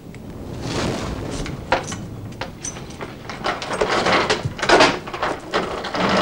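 A wooden door rattling and knocking in irregular bursts, with rushes of noise between the knocks.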